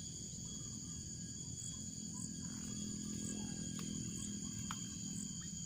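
Insect chorus: steady high-pitched chirring over a low background rumble, with a few faint clicks.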